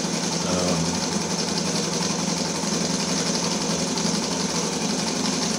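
Brass model Stirling-engine helicopter running steadily: a rapid, even mechanical clatter from its piston, linkage and pulleys driving the spinning rotor.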